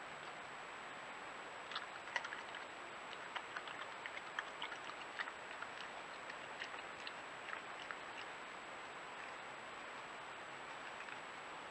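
European badger eating peanuts off paving slabs: an irregular scatter of small sharp crunches and clicks for several seconds, thinning out near the end. Under it runs the trail camera's steady hiss with a thin high whine.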